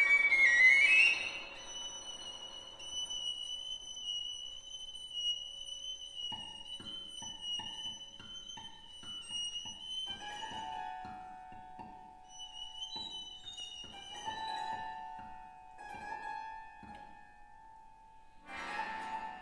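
Contemporary chamber music for flute, clarinet, piano, violin and cello, played live. A loud rising figure breaks off about a second in and gives way to a long high held note over sparse plucked notes. Two close-pitched held notes follow in the middle range, and a fuller, louder chord with a low note enters near the end.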